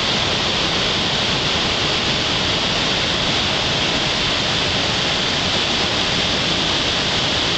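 Flash-flood water rushing and churning over a road and lawn, a loud, steady, unbroken rush of water noise.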